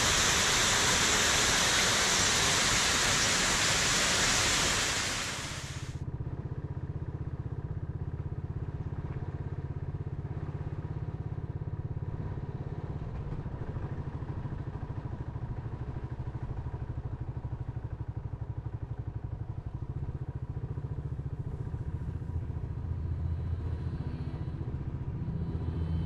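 A loud, steady rush of running water for about five seconds, cutting off suddenly. Then a motorcycle engine runs at a low, even drone while riding along.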